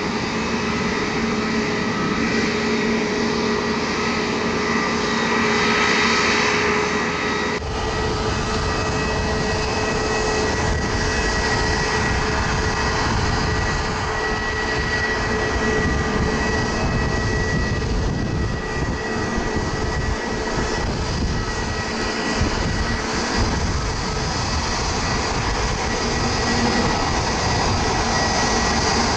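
Airbus A320neo jet engines running steadily, with a steady whine over the engine noise. The low rumble changes abruptly about seven and a half seconds in.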